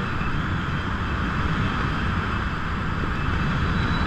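Steady wind rushing over a GoPro's microphone as the skydiver hangs in the harness under an open parachute, a continuous low rumble with a hiss above it.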